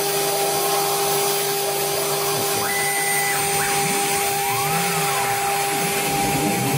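CNC router running with a steady whine over a rushing noise, with faint rising and falling tones about midway through.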